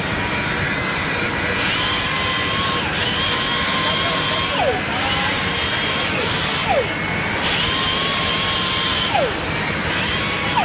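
Electric power sander running, with a steady rasping hiss and a motor whine that drops sharply in pitch about every two seconds before coming back up.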